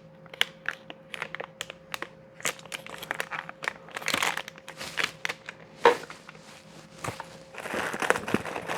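Plastic packaging crinkling and rustling with scattered clicks and knocks as parts are handled, the rustle getting denser near the end.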